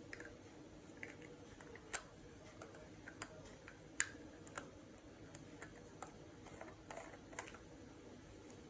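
Faint clicks and taps of hands handling cosmetic packaging, a dark cream jar picked up and turned, with fingernails and a ring knocking lightly on jar and boxes; the two sharpest taps come about two and four seconds in.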